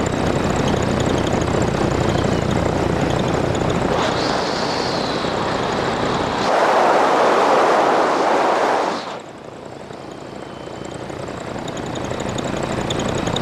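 Light aircraft's carburetted piston engine droning steadily, with wind rush over it. About halfway through a louder rushing noise covers the drone for a couple of seconds, then the sound drops suddenly and the engine drone slowly builds back.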